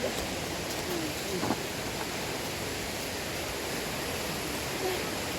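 Steady rushing of a waterfall, with faint voices briefly in the first second or so and again near the end.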